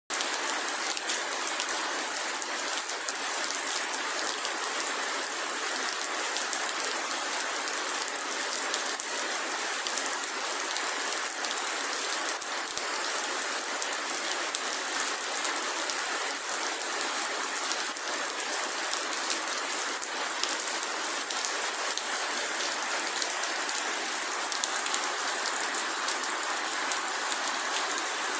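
A steady, dense patter of tiny ticks over an even hiss, like rain falling on a surface, with no single loud crack standing out.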